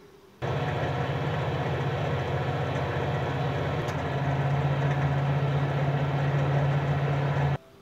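Microwave oven running: a steady electrical hum with a low buzz. There is a faint click about four seconds in, where the hum shifts slightly. It starts and stops abruptly.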